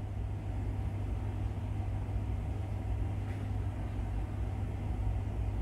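Steady low background hum with a rumble beneath it, and a faint click about three seconds in.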